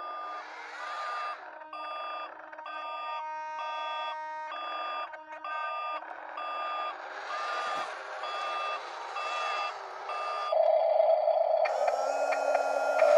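Reversing beeper of a toy radio-controlled wheel loader, beeping about twice a second as the model backs up. Near the end the beeping stops and a louder steady hum with several tones takes over.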